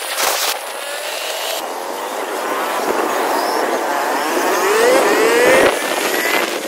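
Motor vehicle engine running on the road, its pitch climbing as it speeds up past the middle, then dropping away abruptly near the end. There is a short knock right at the start.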